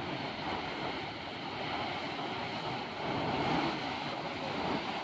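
Ocean surf breaking and washing in against a rocky jetty, a continuous rushing wash that swells louder a little after three seconds in as a wave breaks.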